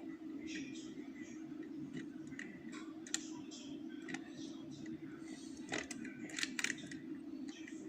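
Metal wire picking tools scraping and clicking inside a five-lever curtained lever lock as the levers are worked, with irregular small ticks and scratches over a steady low hum.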